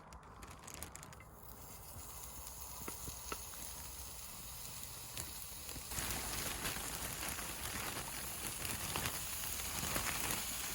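Food sizzling in a pan on a portable camping cooker, with scattered small crackles; the sizzle grows louder about six seconds in.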